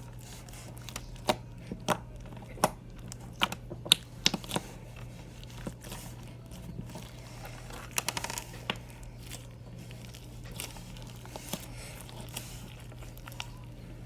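Slime being played with by hand: irregular sharp pops and crackles, with a quick run of clicks about eight seconds in.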